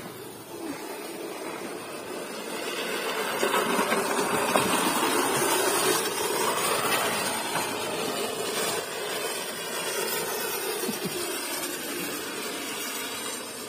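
Manual push reel mower being pushed over snow, its spinning blade reel making a continuous whirring rattle that grows louder in the first few seconds and is loudest as the mower passes close.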